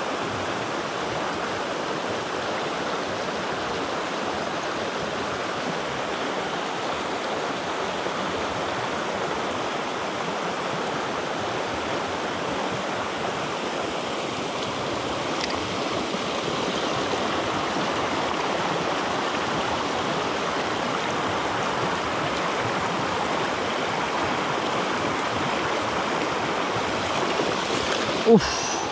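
Fast mountain stream rushing over rocks and boulders: steady water noise, a little louder from about halfway through.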